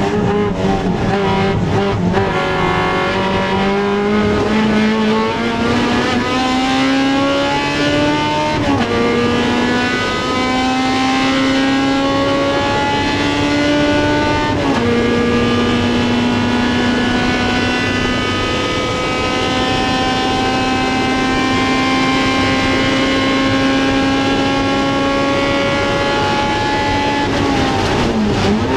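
Honda CRX race car's engine under full throttle, revs climbing through the gears with two sharp upshifts about nine and fifteen seconds in, then a long pull in the higher gear. Near the end the revs fall away as the car slows with downshifts.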